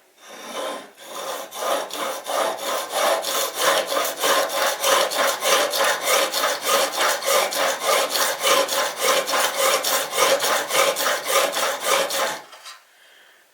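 A diamond whetstone stroked back and forth across the steel blade of a vegetable peeler held in a guided sharpening jig. The rasping strokes come about four a second and stop near the end. The stone is grinding a new, flatter bevel on a completely dull edge.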